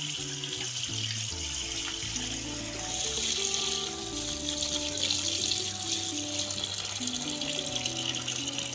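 Cold tap water running steadily onto boiled macaroni in a plastic bowl in a sink, rinsing the cooked pasta. Background music with held notes plays underneath.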